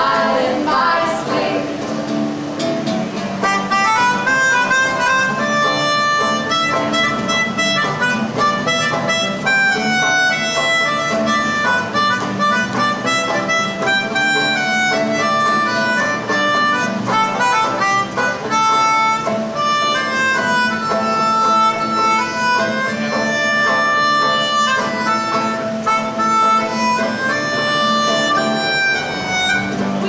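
Melodica playing an instrumental solo of held notes stepping up and down, over acoustic guitar accompaniment. The melodica comes in a few seconds in, after a last sung line.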